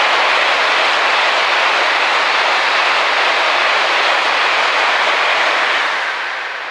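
500 series Shinkansen bullet train running through a station at speed: a loud, steady rush of wheel and wind noise, fading about six seconds in as the last car goes by.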